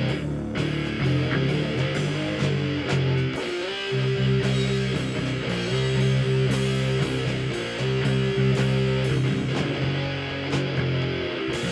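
Live instrumental rock from an electric bass and an electric guitar. The bass holds long low notes over regular percussive hits, with brief breaks about three and a half seconds in and near the end.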